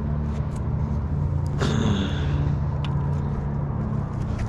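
A steady low mechanical rumble with a hum, with a few small clicks and a brief rustle about one and a half seconds in.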